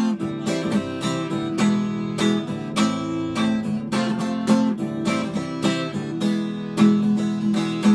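Acoustic guitar strumming chords in an instrumental break of a song, with no voice.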